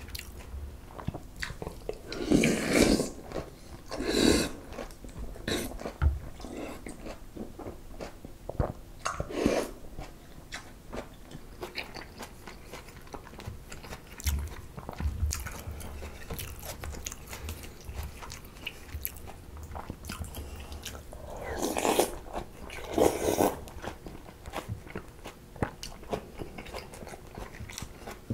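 Close-miked eating of cold raw-fish soup (mulhoe) with noodles: crunchy chewing of raw fish and vegetables throughout, with a few louder slurps of noodles and broth, about two to four seconds in and twice near the end.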